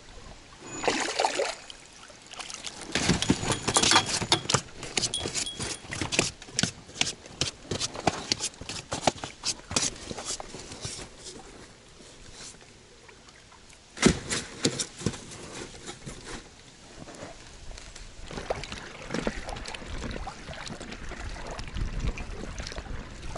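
Water splashing and trickling around an inflatable boat while a hooked fish is hauled aboard and handled on the boat floor, with a run of quick splashes and clicks and one sharp knock about fourteen seconds in. Wind rumbles on the microphone near the end.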